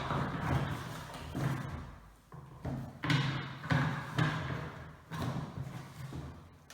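Plastic vacuum cleaner extension tubes being handled and forced together: irregular knocks, thuds and scraping as the pipe sections are pushed into one another, ringing in an echoey empty room.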